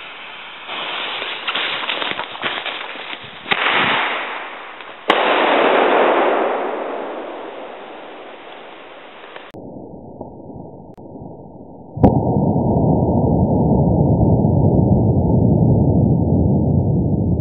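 A homemade aerial firework going off. The fuse and charge crackle and sputter for a few seconds, then a loud bang about five seconds in rolls away slowly. A second sharp bang about twelve seconds in is followed by a steady rushing noise.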